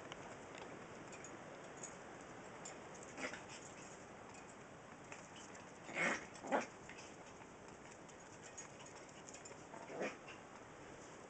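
West Highland white terrier puppies yipping as they play-fight: four short yips, the loudest pair close together about six seconds in.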